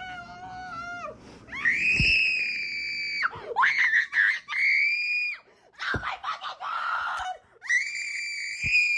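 A young woman screaming in panic after a wasp sting: three long, high-pitched shrieks, each held for one to two seconds, with broken crying between them and a lower wail in the first second.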